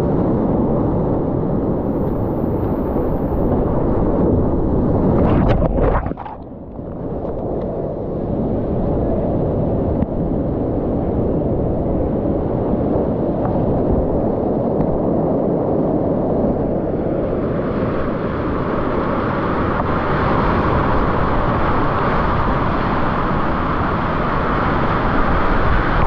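Whitewater rapids rushing and splashing close around a kayak, a loud steady rush of water. About six seconds in the sound briefly drops and turns dull, then the full rush returns.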